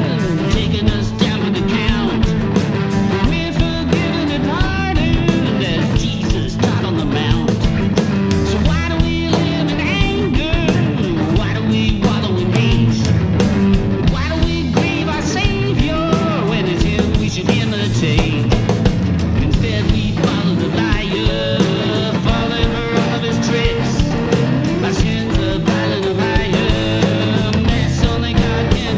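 Rock band playing a song: drum kit, electric bass and electric guitars, with pitches bending up and down in the upper line.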